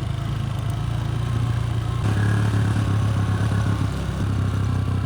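Motor vehicle engine running steadily while on the move, a low drone that gets a little louder about two seconds in.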